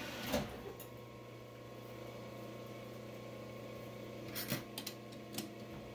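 Metal lathe being shut off after parting off a steel shaft: a knock about a third of a second in, then a low steady hum, and a few light metallic clicks and taps between about four and five and a half seconds in as the parted work is handled.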